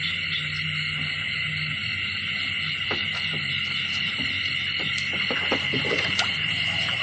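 A small engine running steadily under a constant high-pitched shrill drone, with a few soft knocks in the second half.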